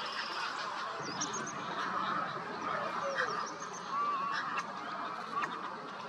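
Many birds calling at once: a steady din of overlapping calls, with short calls that rise and fall in pitch standing out now and then.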